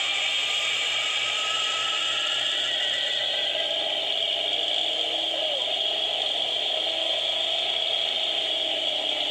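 A 1970 Chevrolet pickup's rear tyre spinning on wet concrete in a burnout: a steady, high squeal and hiss of rubber, with the engine held at high revs underneath.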